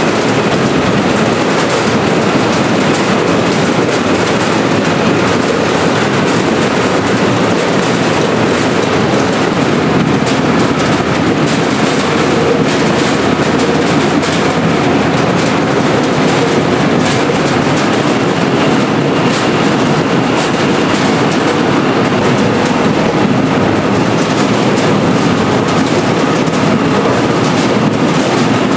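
Seed potato cutting machine running: its conveyor and spool rollers clatter steadily as potatoes tumble and knock across the rollers, a loud continuous rattle of many small knocks.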